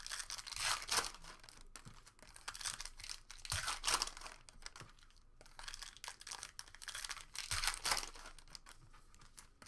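Trading-card pack wrappers crinkling and tearing as packs are opened and cards are handled, in irregular rustling bursts.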